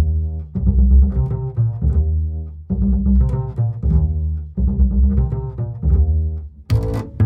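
Intro music with deep, low pitched notes in repeating phrases about two seconds long. Near the end a busier passage with sharp high hits comes in.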